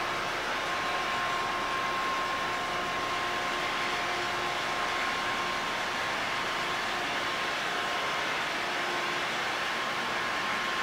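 Steady background machinery noise of a container ship's engine room: a constant rush with a few faint steady tones running through it.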